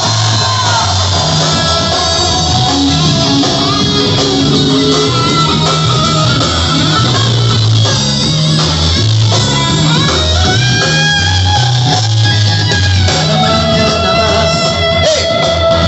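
Live rock band playing an instrumental passage, electric guitar over a moving bass line, loud and steady.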